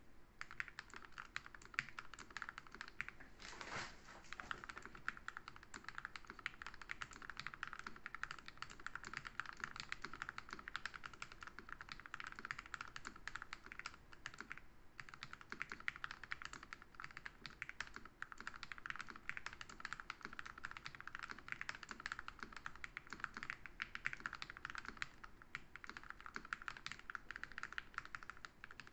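Continuous fast typing on a Gamakay 87 mechanical keyboard fitted with TTC Orange linear switches lubed with Krytox 205g0: a dense stream of key clacks, broken only by a couple of brief pauses.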